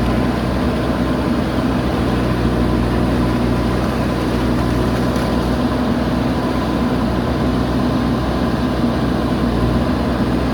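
JCB backhoe loader's diesel engine running at a steady speed, an even drone that holds its pitch throughout.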